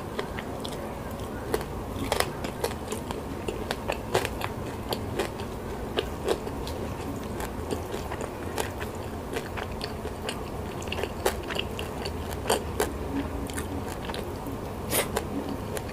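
Close-miked chewing with many short, sharp crunches of crispy fried salted fish eaten with rice.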